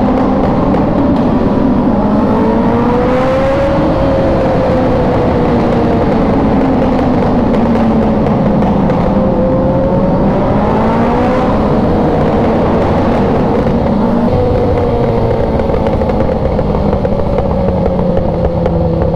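A group of superbikes and motorcycles riding through a tunnel, engines revving up and easing off several times. The exhaust note rises in pitch about three seconds in and again near ten seconds, then falls back.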